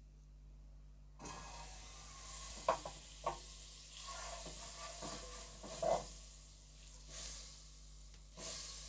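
Butter sizzling as it melts in a hot pot, starting about a second in, while a wooden spatula pushes it around with a few short scrapes and knocks against the pot.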